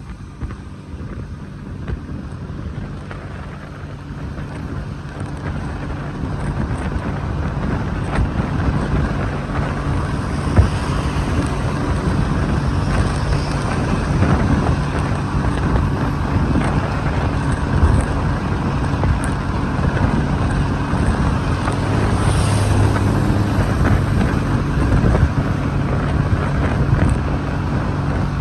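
Wind rushing over a phone's microphone on a moving vehicle, with a steady engine hum underneath. The noise grows louder over the first several seconds, then holds steady.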